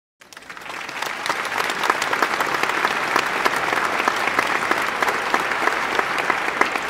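Applause from a crowd. It fades in just after the start and then holds as steady clapping.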